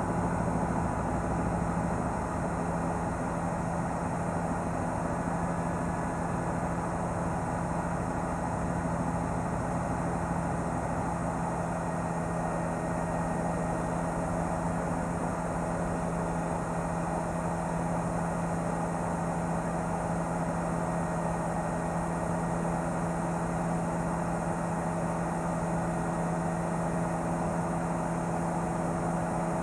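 Helicopter running steadily: a constant engine and rotor drone with a few fixed hum tones that do not change.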